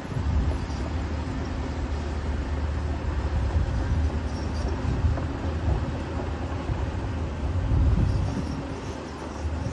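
Diesel engine of a Caterpillar 320D hydraulic excavator working: a steady low rumble that swells and eases with the load several times, loudest near the end.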